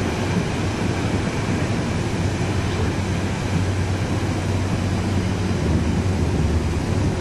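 Inside a moving subway (U-Bahn) car: the train's steady running rumble, a low hum under a constant rushing hiss.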